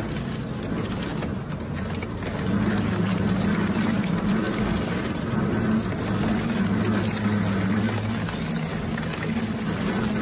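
Industrial shredding machine running with a steady low hum and a constant grinding noise.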